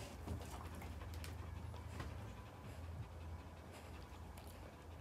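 Dogs panting softly with open mouths, over a steady low hum and a few faint clicks.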